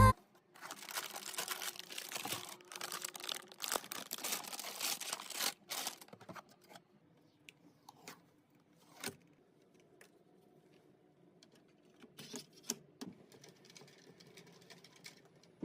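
Crinkling, rustling handling noises for about five seconds, then a few scattered light clicks and taps over a faint steady hum.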